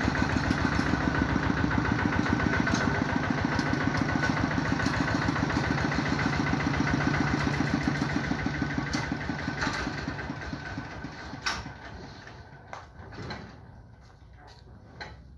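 Kubota walking tractor's single-cylinder diesel engine running steadily at idle, then shut off about ten seconds in and dying away. A few sharp knocks follow.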